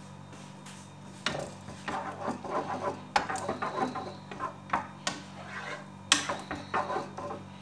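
Wooden spoon stirring yogurt in a pot, scraping and knocking irregularly against the pot's bottom and sides from about a second in. The yogurt is being stirred as it heats up to the boil.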